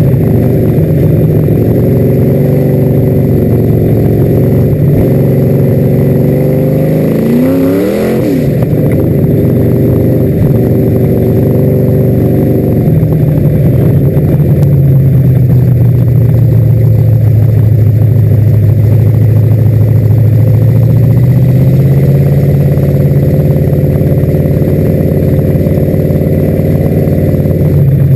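Dirt-track race car's engine heard from on board, running loud, its pitch rising and falling with the throttle. About eight seconds in there is a quick sweep in pitch.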